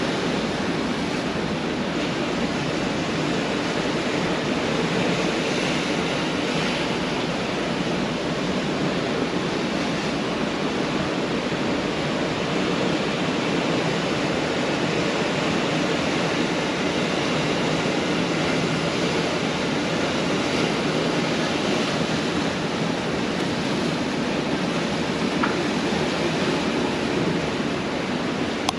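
Pacific Ocean surf breaking on a beach: a steady, unbroken wash of waves with no distinct swells standing out.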